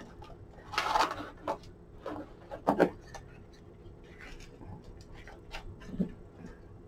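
Parchment lampshade and its wire ring being handled while gimp lace is pulled through the lacing holes: a short rustle about a second in, then scattered light clicks and taps, the strongest near three seconds and a dull tap near six.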